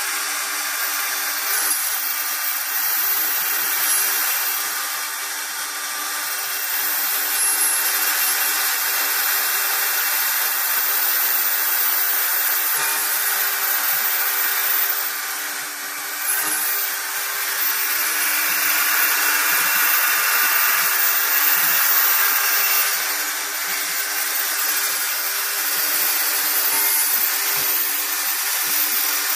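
CNC router spindle milling aluminium checker plate: a continuous hissing cutting noise over a steady spindle tone, easing off briefly a few times.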